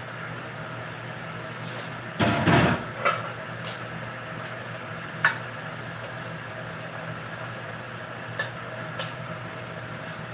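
Cookware clatter at the stove: a loud clatter lasting about half a second a couple of seconds in, then a handful of short light knocks, over a steady low hum.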